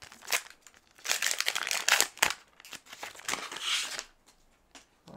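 Plastic wrapper of a Bowman baseball-card pack crinkling as it is worked open by hand, in several bursts, loudest about one to two seconds in.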